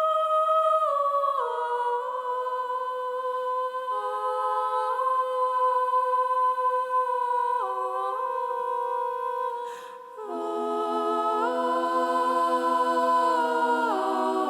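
Wordless a cappella vocal harmony: several voices humming held chords that change every second or two. After a brief break about ten seconds in, lower voices join for a fuller chord.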